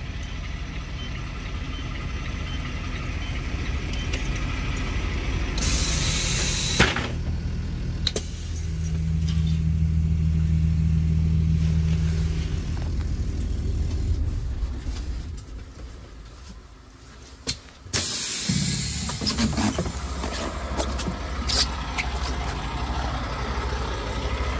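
School bus engine idling steadily. About six seconds in comes a short hiss of air that ends in a click, typical of the air brakes. Near eighteen seconds a knock is followed by a steady wash of noise.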